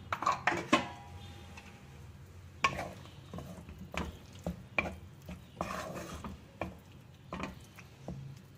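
A spoon stirring crumbled paneer with tomato in a cooking pan, scraping through the wet mixture and knocking against the pan at irregular intervals, roughly once every half second to a second.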